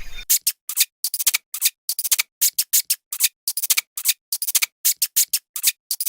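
An animal's rapid, irregular series of short, sharp clicking chirps, about four a second, with dead silence between them.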